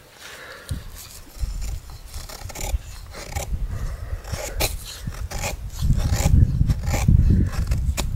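Knife blade shaving thin curls off a dry wooden stick to make feather sticks: a run of short, irregular scraping strokes. About six seconds in, a louder low rumble comes in underneath the scraping.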